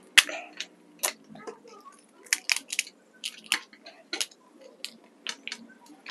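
Crisp puri shells cracking and crunching: an irregular series of short, sharp crackles and clicks.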